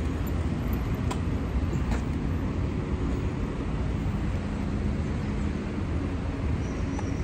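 Steady city road traffic noise from passing cars.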